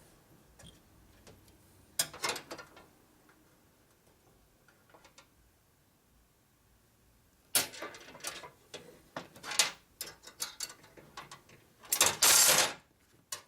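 Sporadic clicks and knocks of a metal brake line and hand tools being handled while the line is bent and twisted by hand, with a cluster of taps in the second half and a brief louder scrape near the end.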